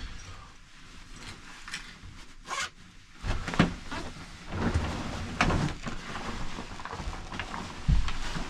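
Wind buffeting the microphone in gusts, with heavy low rumbles, building about three seconds in. A few short knocks, from the microphone being handled, come before it.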